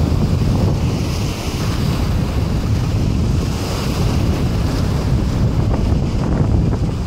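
Wind buffeting the microphone over a steady wash of small sea waves.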